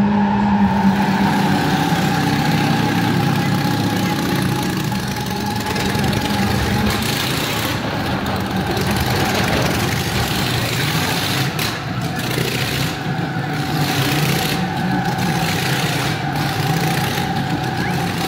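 Motorcycle engine running steadily as the bike circles the wall of death, its hum carried on a constant pitch with brief dips in the upper part of the sound every second or so from midway on.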